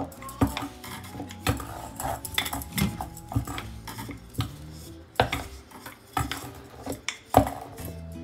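Thin wooden rolling pin working dough flat on a bamboo chopping board: irregular knocks and clicks as the pin taps and rolls on the board, with bangles on the wrist clinking.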